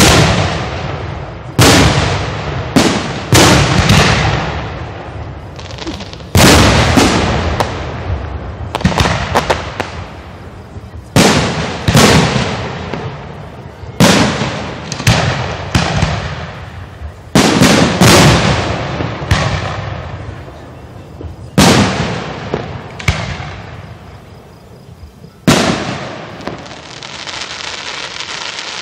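Aerial firework shells bursting at close range in quick succession: about twenty loud, sharp bangs, every second or two and sometimes two close together, each fading off in echo.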